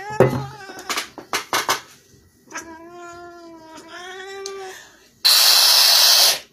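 Domestic tabby cat protesting while its nails are clipped: a short cry and several sharp clicks in the first two seconds, then one long drawn-out yowl of about two seconds. Near the end comes a loud hiss lasting about a second.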